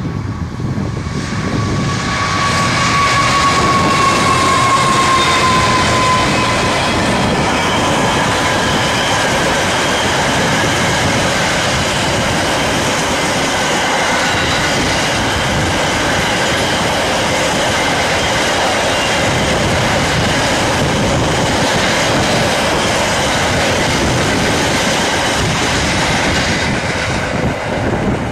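Class 66 diesel locomotive passing at speed with a long freight train of box wagons. The wheels rattle over the track in a loud, steady rumble that drops away near the end. A high whine slides down in pitch during the first few seconds.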